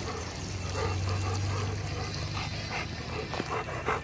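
Golden retriever panting in a quick, steady rhythm of short breaths, about three or four a second.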